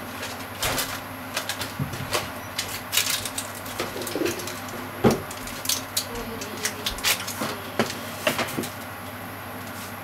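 Cream sauce with onion and bacon simmering in a frying pan, its bubbles popping in irregular clicks and pops over a steady low hum.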